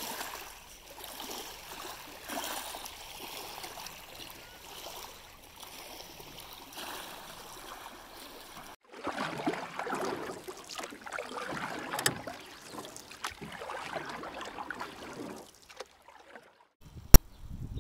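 Small waves lapping at the shore of a very wide river, a wash of water that swells and falls. About nine seconds in it breaks off and comes back louder and rougher, with a sharp click near the end.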